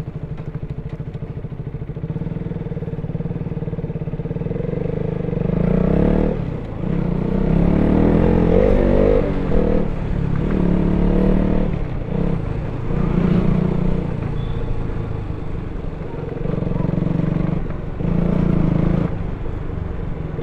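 KTM RC 200's single-cylinder engine running through its stock exhaust: a steady pulsing beat for the first couple of seconds, then several surges of throttle with the engine note rising and dropping back between them.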